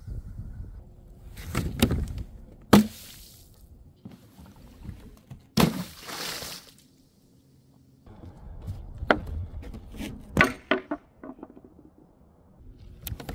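Objects being dropped and smashed: sharp cracks and crunches with splashing. The loudest crack comes about three seconds in, and a quick run of smaller clicks and crunches fills the second half.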